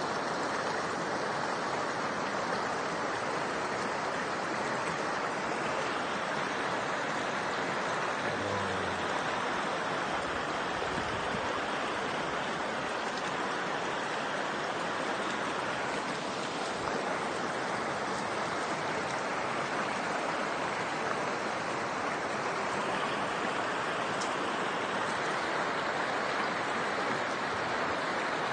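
Steady rush of running water from a stream, an even hiss with no breaks.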